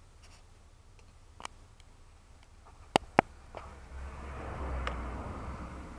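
Sharp clicks of the cab's rotary climate-control knobs being turned, twice in quick succession about three seconds in. Then from about four seconds a steady rush of air builds up, as the ventilation fan speeds up.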